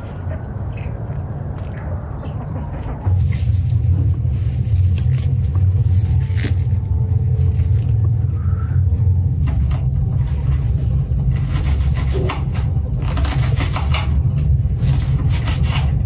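Knife chopping fresh greens on a wooden cutting board: a few scattered taps, then a quicker run of chops in the last few seconds, over a steady deep rumble.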